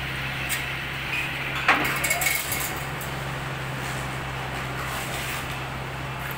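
Metal clinks and a sharp clank from a multi-gym's lat pulldown bar, chain and pulley as the bar is handled and pulled down, the loudest knock about two seconds in followed by a short cluster of clinks, over a steady low hum.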